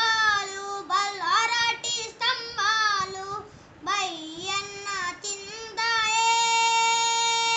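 A young boy singing unaccompanied, phrase after phrase with bending, ornamented pitch and short breaks for breath, then holding one long steady note over the last two seconds.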